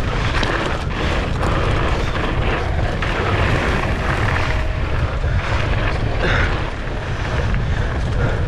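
Steady wind rushing and buffeting over the microphone at riding speed, over the rumble of a downhill mountain bike rolling down a dirt trail.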